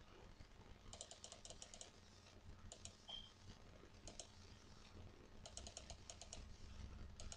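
Faint bursts of quick computer mouse clicks, several a second, coming in short runs about a second in, near the middle, and again from about five and a half seconds on.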